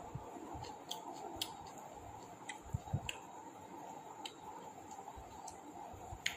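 Scattered small sharp clicks and two soft low thumps in quick succession about three seconds in, over a steady background hum.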